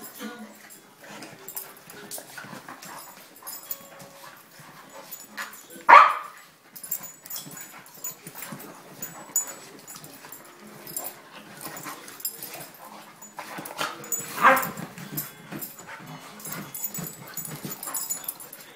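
Two dogs play-fighting on a leather couch: scuffling and scrabbling of paws on the leather, broken by two short, loud barks, one about a third of the way in and one about three-quarters of the way in.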